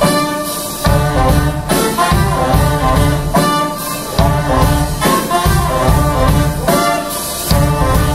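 Live folk-jazz band with a horn section of trumpets and reeds, keyboard and drums playing an upbeat swing tune, with a strong accent on the beat a little less than once a second.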